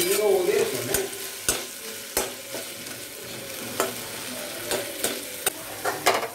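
A metal spatula stirring and scraping a masala of onion, tomato and green chilli frying in oil in a kadai, with a steady sizzle. Sharp clinks of the spatula against the pan come every second or so.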